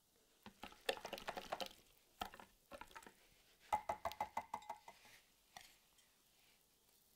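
Silicone whisk beating an egg and yogurt mixture in a glass measuring jug, a rapid clicking and sloshing against the glass in two short spells of about a second each, with a few single taps between.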